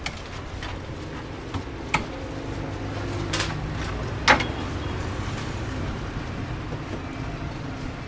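Street noise with a motor vehicle engine running steadily and a few sharp clacks, the loudest about four seconds in.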